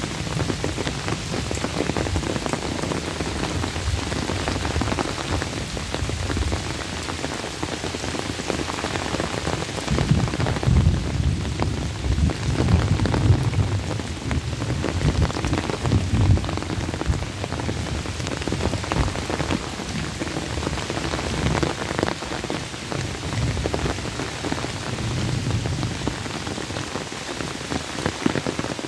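Heavy rain falling steadily on leaves and open pond water: a dense, even hiss of drops with individual patters in it. A low rumble swells and fades from about ten seconds in, for several seconds.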